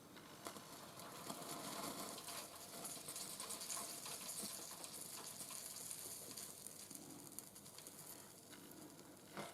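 Flux sizzling and crackling on copper under heat during soldering, a fine crackle that builds about a second in and eases near the end.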